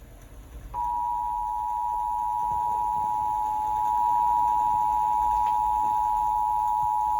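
Emergency Alert System attention signal: a steady two-tone alarm near 1 kHz that comes in sharply about a second in and holds level. It is the alert tone that announces an emergency broadcast message.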